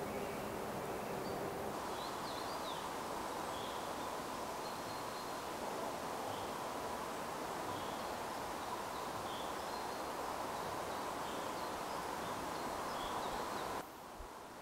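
Steady wind rushing through the forest and buffeting the camera's own microphone, with faint short bird chirps over it. The sound drops to a much quieter forest ambience near the end.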